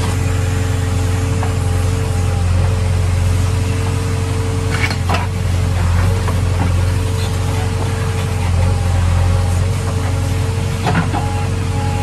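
JCB 3DX backhoe loader's diesel engine running steadily with a steady whine over it as the backhoe arm is worked, heard from inside the cab. Two brief clanks come about five seconds in and near the end.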